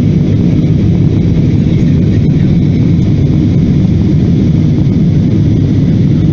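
Steady low rushing drone of jet engines and airflow heard inside an airliner's cabin in flight, unchanging throughout.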